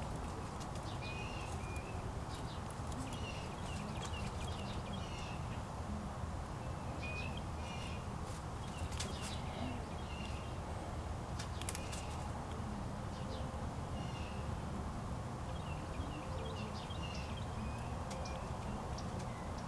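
Small birds chirping in short, frequent calls over a steady low outdoor rumble, with a few sharp clicks around nine and twelve seconds in.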